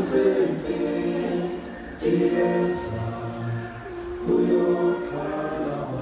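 A choir singing sustained chords as background music, with new phrases swelling in at the start, about two seconds in, and a little after four seconds.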